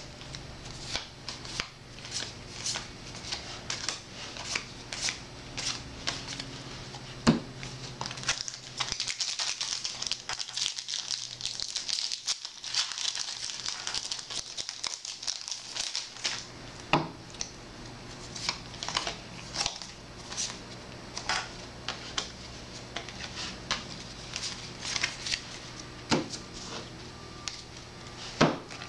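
Foil Yu-Gi-Oh booster pack wrappers crinkling and tearing as packs are opened, with quick clicks and snaps of cards being handled; a longer spell of dense crinkling comes about a third of the way in.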